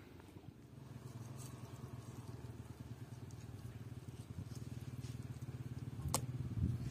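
A small engine running with a low, fast-pulsing hum that sets in about a second in and grows louder toward the end. A single sharp click comes near the end.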